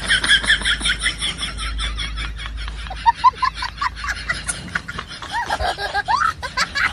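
High-pitched giggling laughter: a fast run of short laughs at about six a second, then a few short squeaky rising notes about three seconds in.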